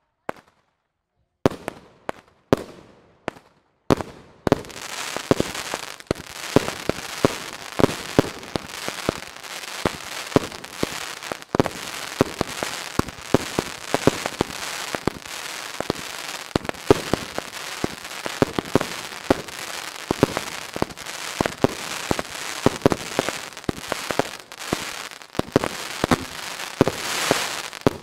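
Fireworks going off: a few separate bangs a couple of seconds in, then from about four seconds on a dense barrage of rapid bangs over steady crackling, the crackle swelling near the end.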